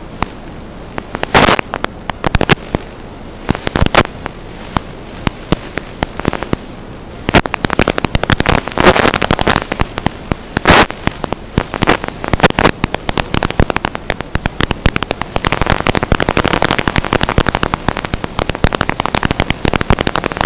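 Static hiss from an analog FPV video receiver's audio channel, broken by irregular sharp crackles and pops that come thick and fast from about a third of the way in. This is radio interference on the drone's video downlink, picked up by the receiver's recorder.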